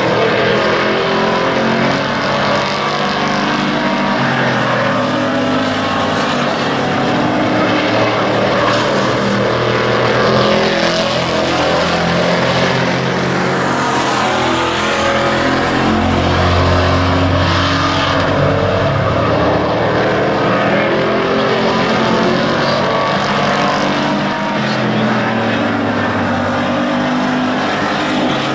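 Engines of small pickup race trucks running hard as they lap an asphalt oval. The engine note shifts up and down, and the sound swells around the middle as the trucks go by close.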